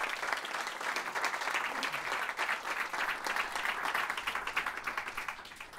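Audience applauding at the end of a talk, many people clapping at once, fading out near the end.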